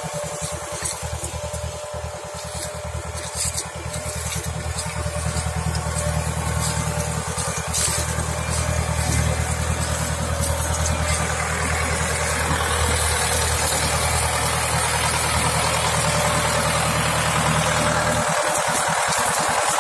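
Deutz 6206 tractor's air-cooled six-cylinder diesel running steadily under load while pulling a reversible plough through the soil. It grows gradually louder over the first half, then holds level.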